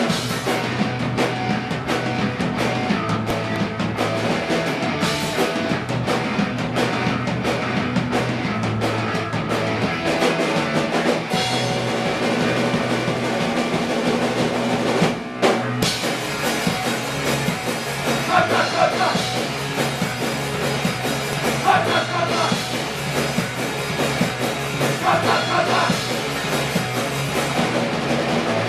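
Rock music with a drum kit and guitar, with a brief drop-out about halfway through.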